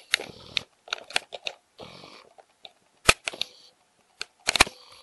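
Light handling noise from fingers working the plastic pressure relief valve and its clear tubing inside a disassembled Keurig K90 brewer: scattered small clicks and rustles, with one sharp click about three seconds in and a quick run of clicks near the end.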